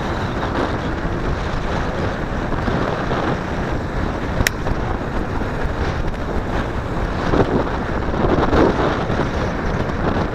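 Wind rushing over the microphone of a moving motorcycle, with the WSK's two-stroke single-cylinder engine running under it. A short sharp click about four and a half seconds in.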